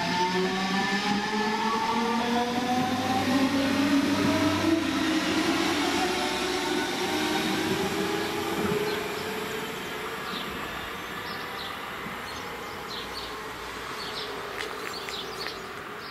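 Red DB Regio electric multiple unit (class 425 type) accelerating away from the station platform: its traction motors give a whine that climbs steadily in pitch over wheel and rail rumble, then fades as the train leaves, about eight seconds in.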